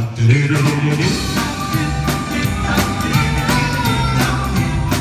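1960s vocal-group rock and roll record playing: a steady drum beat and a bass line, with sung harmonies over them.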